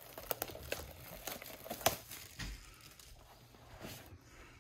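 Plastic wrapping on a trading-card box or pack crinkling and tearing as it is pulled open by hand. There is a run of sharp crackles over the first two seconds, the loudest just before the middle, then quieter rustling.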